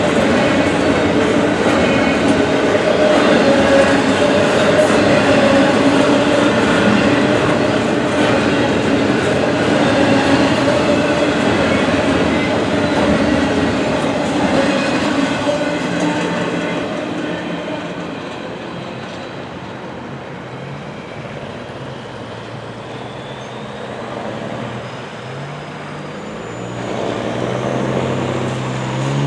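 Norfolk Southern freight train rolling past a grade crossing, the cars' wheels running on the rails with a steady hum. The sound fades away about halfway through. Near the end a road vehicle's engine accelerates, rising in pitch.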